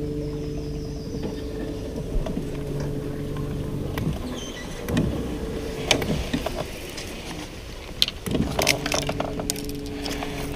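A small boat's motor humming steadily. It stops for about four seconds in the middle and then runs again. Scattered knocks and scrapes come through the gap and near the end as the boat squeezes through a narrow channel.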